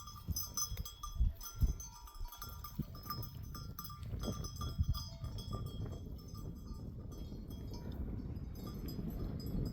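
Bells on a grazing flock of sheep and goats clinking and ringing irregularly as the animals move. The bells are thick in the first half and thin out after about five seconds, leaving a low rustling noise.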